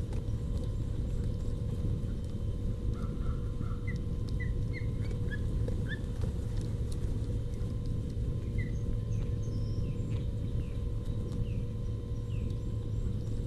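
Ospreys giving short, high chirps, faint over a steady low rumble: a quick run of rising chirps a few seconds in, then a spaced series of falling chirps later on.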